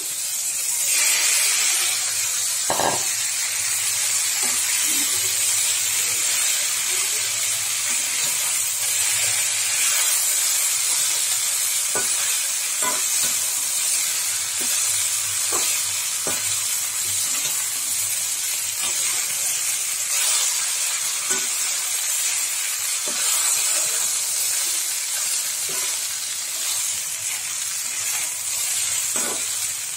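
Cooked rice being stirred into fried brinjal and onions in a hot pan: a steady sizzling hiss, with a metal spoon scraping and knocking against the pan every few seconds.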